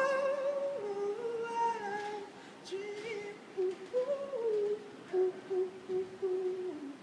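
A wordless hummed vocal melody: slow held notes that step up and down in pitch, growing quieter after about two seconds as the song closes.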